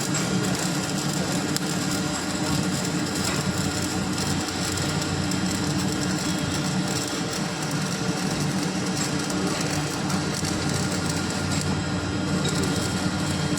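Stick (arc) welding on a pipe: the welding arc crackling and sizzling steadily, with a low electrical hum underneath.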